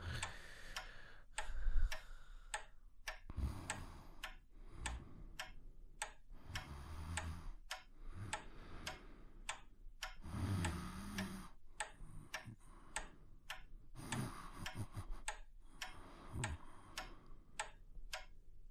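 Pendulum wall clock ticking steadily, about two ticks a second, with a brief low thump about two seconds in.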